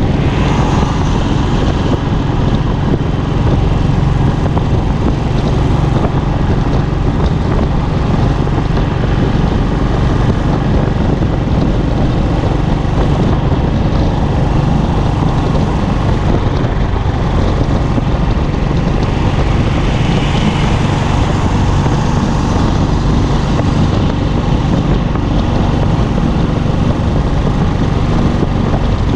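Royal Enfield Classic's single-cylinder engine and exhaust running steadily at highway cruising speed, heard from the handlebars with wind rush over the microphone.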